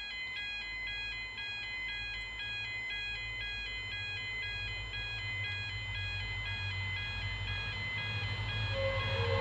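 Electronic level crossing warning bells ringing in a steady repeating two-note pattern, over a low rumble. A diesel locomotive's horn begins to sound right at the end.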